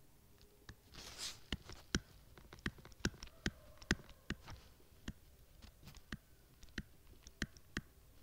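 Light, sharp taps of handwriting on a phone touchscreen, irregular, two or three a second.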